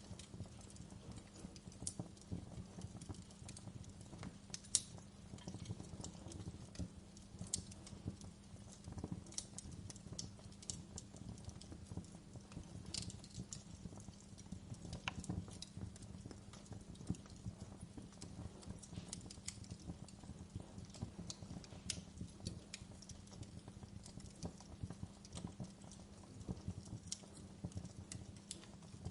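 Wood fire crackling: irregular sharp pops and snaps over a steady low hum.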